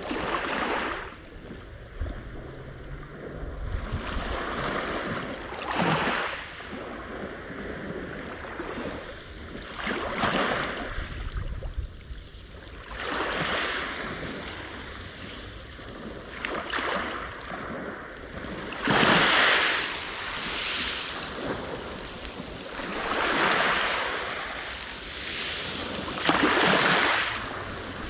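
Sea waves breaking on the shore, each surge of surf rising and fading every few seconds, with some wind on the microphone.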